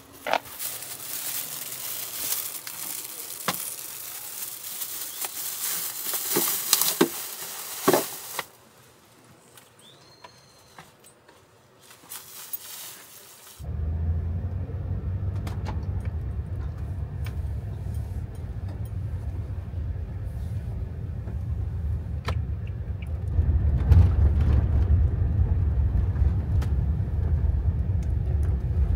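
Steady low rumble of a Toyota Hiace camper van's engine and road noise heard from inside the cab while driving, starting suddenly about 14 seconds in and getting louder from about 23 seconds in. Before it comes a hiss with scattered clicks and knocks, then a quieter stretch.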